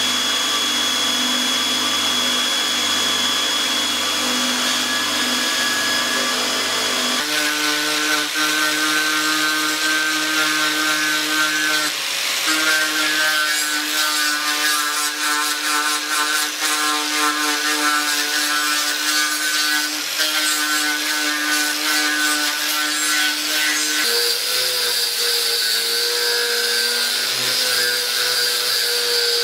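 A belt grinder running steadily with a sword blade held to it. About seven seconds in it cuts abruptly to an angle grinder grinding the blade, its motor whining steadily over the grating of the disc on metal.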